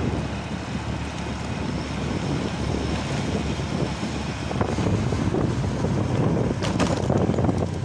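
Wind buffeting the microphone on a moving motorcycle, with the engine running steadily underneath.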